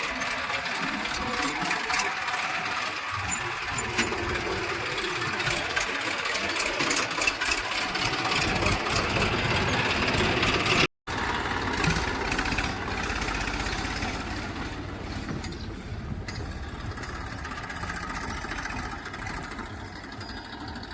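Diesel engine of a heavy farm or construction machine running steadily. The sound drops out completely for a moment about eleven seconds in, then the engine continues with a deeper, somewhat quieter rumble.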